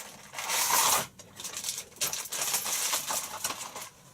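Rummaging through packaged cabinet hardware: a loud rustle of packaging, then a run of small clicks and rattles from handles and screws being handled.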